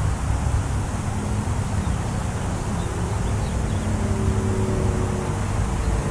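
Steady low rumble of wind on the microphone. A faint, even engine hum from a vehicle sounds from about a second in until near the end.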